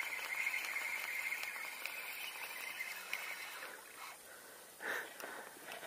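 Spinning reel being cranked, retrieving a hooked perch: a steady whirr that stops about three and a half seconds in, then a brief soft sound near the end.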